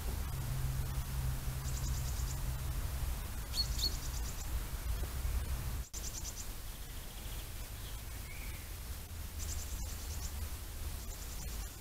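Small songbirds giving short, high, rapid trills about five times, over a steady low background rumble.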